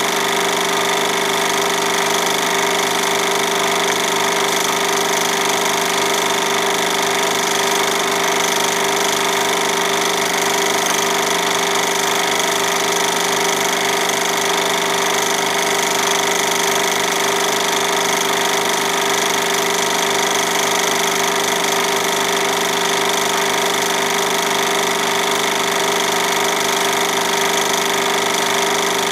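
Film projector running: a steady motor whir with a fast, even mechanical clatter as the film advances.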